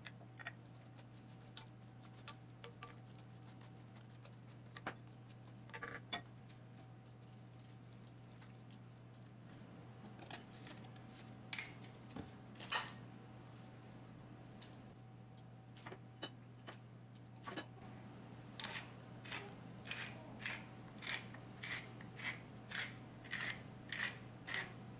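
Scattered knocks and clinks of kitchen utensils, the loudest a sharp click about halfway through, then a hand-twisted spice grinder grinding over the pot: a steady run of clicks at about two a second through the last several seconds.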